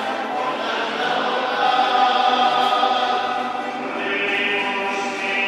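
A choir singing slowly in long held notes.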